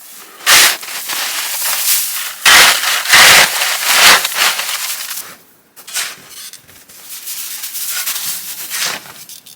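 Loud rustling and crunching noise with several heavier bumps, at about half a second in and then three more between two and four seconds in.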